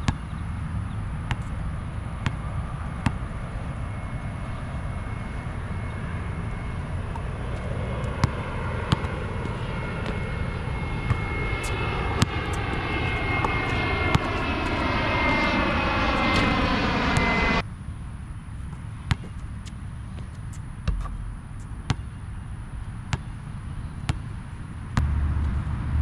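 An airplane passing low overhead grows steadily louder, with a steady high whine and a sweeping, phasing hiss, then cuts off abruptly about two-thirds of the way through. Sharp thuds of a basketball bouncing come every second or so.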